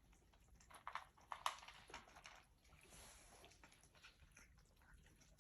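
Mostly near silence, broken by a few faint short sounds from a mother cat and her kittens, the two clearest about a second and a second and a half in.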